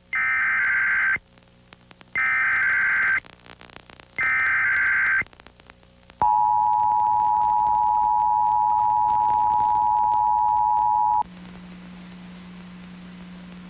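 Emergency Alert System SAME header from a VDS840 EAS unit: three one-second bursts of warbling digital data tones with short gaps between them. Then the two-tone EAS attention signal sounds steadily for about five seconds and cuts off abruptly, leaving a low steady hum.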